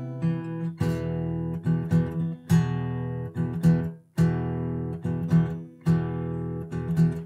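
Solo steel-string acoustic guitar playing a chordal introduction, notes struck in a steady rhythm and left to ring, with a short gap about four seconds in and a pause near the end.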